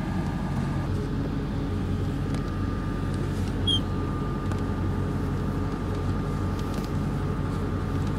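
A steady, low engine-like hum with a thin, steady high whine above it, and one brief high chirp about three and a half seconds in.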